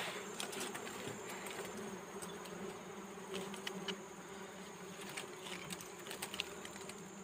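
A swarm of dwarf honeybees buzzing steadily around their exposed comb, with a few faint clicks in the middle.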